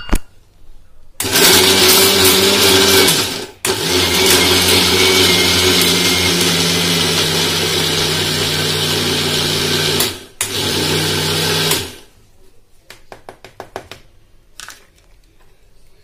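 Electric mixer grinder running with cashews and melon seeds in its small stainless-steel jar, grinding them to a fine powder. It runs in three goes, stopping briefly about two and a half seconds in and again near ten seconds, then cuts off, followed by a few light clicks from the lid and jar being handled.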